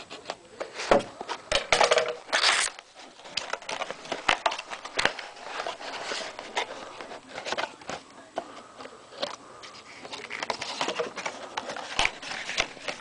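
Crinkling and rustling of wrapping as a sealed trading-card hobby box is unwrapped and handled close to the microphone: an irregular run of crackles and clicks, with the loudest tearing bursts in the first three seconds.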